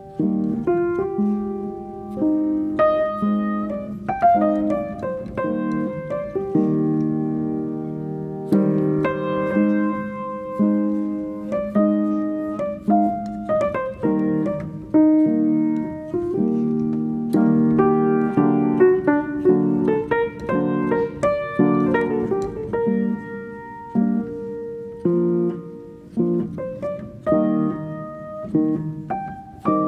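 Background piano music: a melody of struck notes over sustained chords.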